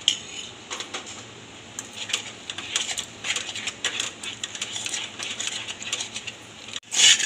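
Metal spoon scraping and clinking irregularly against a steel kadhai as thick ground moong dal paste is stirred and roasted in ghee. The scraping gets louder near the end.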